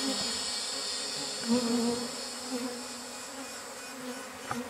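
Honeybees buzzing in a swarm around an opened hive as a comb frame is lifted, a wavering hum that slowly grows quieter.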